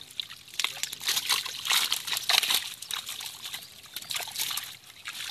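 Water splashing and dripping in a net crowded with live small fish as hands pick through them: many short, irregular wet splashes.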